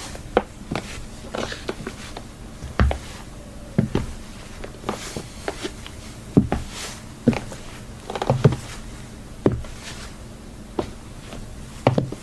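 High-heeled shoes clicking on a hard floor: irregular single steps and taps, roughly one a second, each a sharp click with a low thud beneath.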